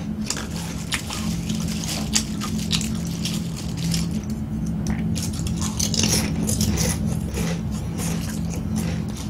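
Fingers picking through a pile of dry, crisp Kkobuk corn chips on a wooden board, the chips clicking and scraping against each other in many short crackles, mixed with crunchy chewing. A steady low hum runs underneath.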